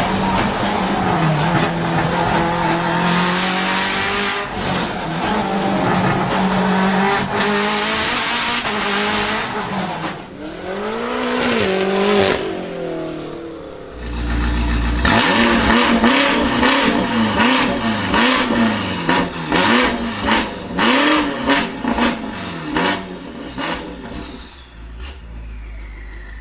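Race car engine at high revs, heard from inside the cockpit. Then a performance car with quad carbon-fibre exhaust tips is revved in repeated blips, its engine sound rising and falling, with many sharp pops and cracks from the exhaust.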